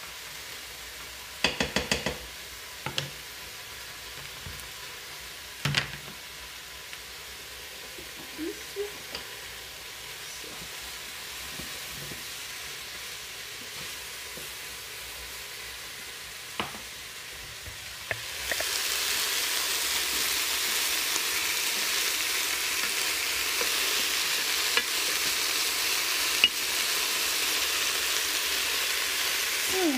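Meatballs and vegetables sizzling as they brown in the pot of a Krups Cook4Me multicooker, with a few sharp knocks of a wooden spoon against the pot, a short cluster of them near the start. About 18 s in, the sizzling becomes much louder and stays that way.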